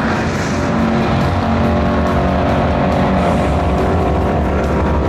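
Drag car's V8 engine running loudly and steadily, with no change in pitch or level.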